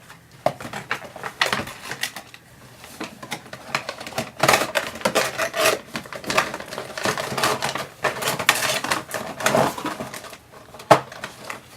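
Pop vinyl figure's cardboard box and plastic insert being handled, a rapid run of clicks, crackles and scrapes as the figure is pushed back into it. Busier from about four seconds in, with one sharp knock near the end.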